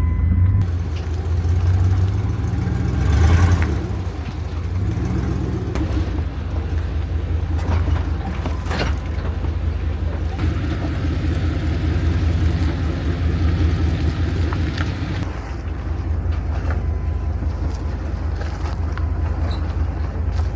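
Dodge Dakota pickup driving slowly down a rough dirt trail: a steady low engine and drivetrain rumble, with a few sharp knocks and rattles from the rough ground.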